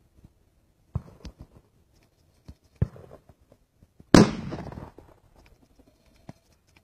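A close shotgun shot about four seconds in, the loudest thing, with a tail of echo dying away over most of a second. Two fainter, more distant shots come about a second in and near three seconds.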